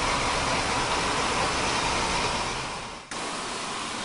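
Steady background hiss with no clear source, fading down about three seconds in and then switching abruptly to a slightly quieter hiss, as at a cut between recordings.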